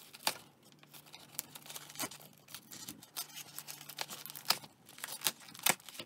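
Pocket knife blade slicing open a plastic bubble mailer: irregular crackling and crinkling of the plastic, with a few sharper snaps.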